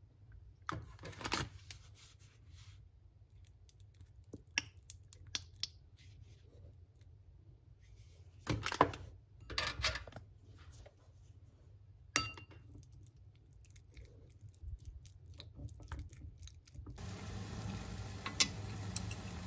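Kitchen handling sounds: a ceramic bowl, utensils and packaging knocked and clinking in scattered clatters, with a sharp click about twelve seconds in. Near the end a steady hiss of water boiling in a steel pot of instant noodles takes over.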